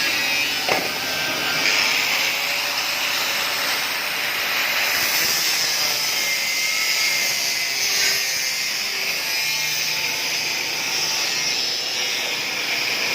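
Handheld angle grinder cutting a notch into 6 mm steel ship plate: a steady, high hissing grind that runs without a break.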